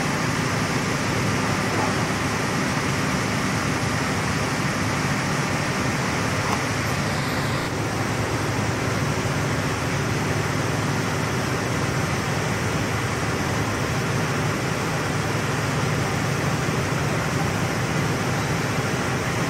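Argon (TIG) welding arc on mild steel pipe: a steady hiss with a low hum underneath.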